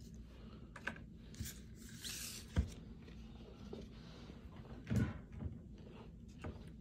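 Faint handling noises on a wooden desk while cards and packs are set down and picked up: a few soft knocks and rustles, the sharpest knock about two and a half seconds in and another rustle about five seconds in, over a low steady hum.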